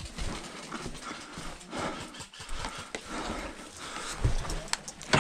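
Irregular low thumps of footsteps and gear close to the microphone of a moving airsoft player, with a few sharp clicks near the end.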